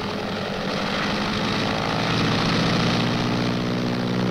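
Single-engine propeller aircraft's radial piston engine running steadily, a little louder and higher in pitch from about two seconds in.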